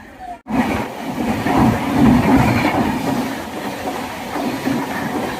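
Train running along the rails, with a steady rumble that cuts in abruptly about half a second in.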